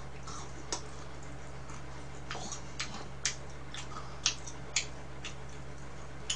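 Scattered light clicks and smacks of someone eating with chopsticks, a dozen or so at irregular intervals, over a steady low hum.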